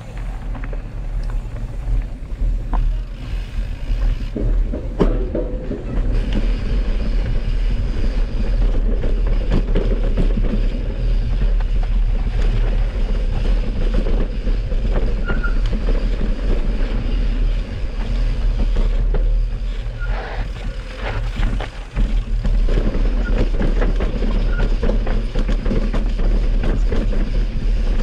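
Mountain bike ridden over a rough dirt and rock trail, heard from a camera carried on the rider: a steady low wind rumble on the microphone with continual rattling and knocks from the bike.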